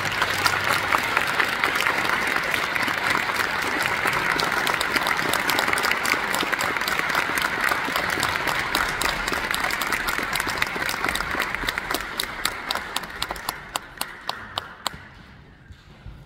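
Concert audience applauding: dense clapping that thins into scattered claps and dies away near the end.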